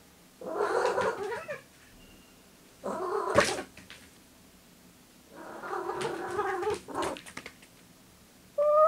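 Spayed female domestic cat meowing in three drawn-out, rough calls, with a sharp knock during the second, then one short, clear meow that rises and falls near the end. It is her usual jumping-and-calling behaviour, not a heat call.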